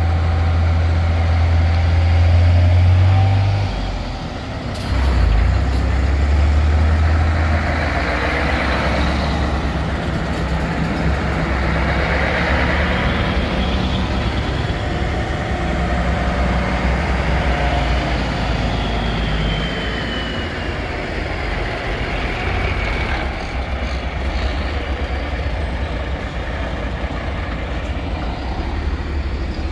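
Heavy diesel lorry engines running at low revs as trucks move off, the deep engine note dropping briefly about four seconds in and coming back a second later, with hisses of air from the air brakes.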